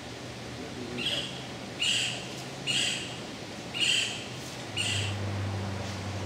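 A bird calling five times: short, high calls spaced about a second apart.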